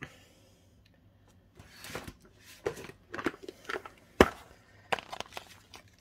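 Crinkling and rustling of a clear plastic packet being handled, starting about a second and a half in, with one sharp knock about four seconds in.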